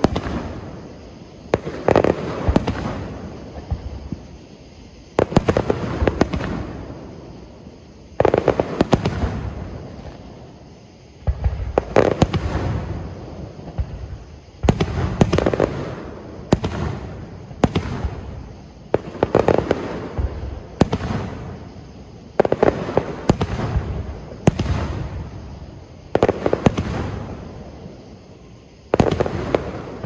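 Aerial fireworks shells bursting one after another, sharp booms every two to three seconds, often two or three close together, each fading out in a rolling rumble.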